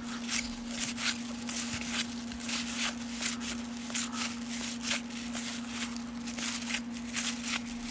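Cardboard baseball cards sliding and flicking against each other as they are thumbed off a stack one at a time: a quick, uneven run of soft scrapes, two or three a second, over a steady low hum.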